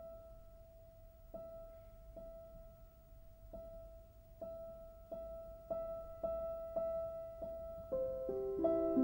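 Background piano music: a single high note struck again and again, the strikes coming closer together and louder, until other notes join in a falling line near the end.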